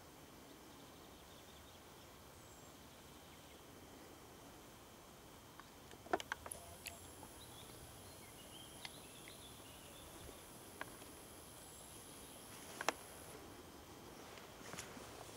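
Faint meadow ambience with insects: a thin, high, steady buzz that holds for several seconds through the middle, and a few sharp clicks around the middle and again near the end.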